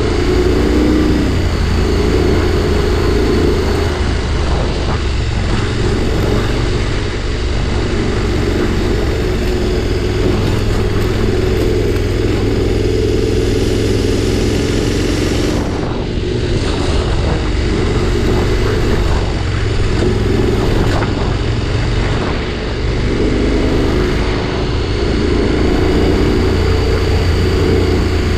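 Adventure motorcycle's engine running under way on a dirt road. Its note rises and falls with the throttle over a steady rumble and road noise.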